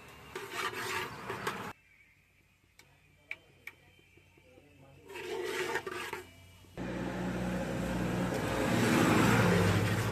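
Cumin seeds and bay leaf sizzling in hot oil in an aluminium pot as they are stirred with a metal spatula. After a quiet stretch with a few light clicks, a loud hiss starts suddenly about two-thirds of the way in and swells.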